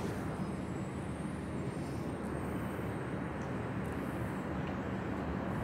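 Steady hum of distant city traffic, with no single sound standing out.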